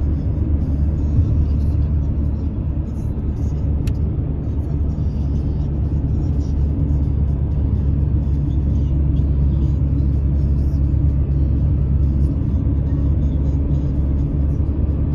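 Steady low rumble of a car's engine and tyres on the road, heard from inside the moving car's cabin. A single faint click comes about four seconds in.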